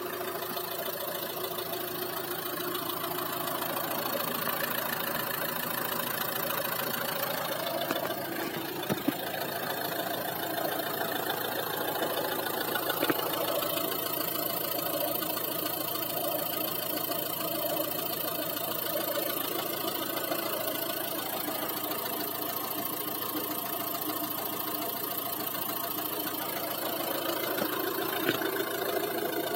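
1.6 HDi DV6C four-cylinder turbodiesel idling steadily with a soft knock, the kind that appears as the engine warms up; the owner does not know its cause. A few sharper clicks stand out along the way.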